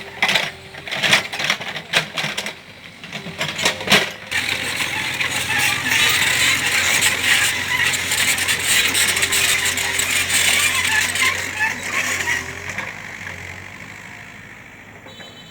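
Mini excavator at work: sharp metallic clanks and knocks, then a long rattling, crunching scrape of soil and stones that fades out near the end, over the low hum of the running engine.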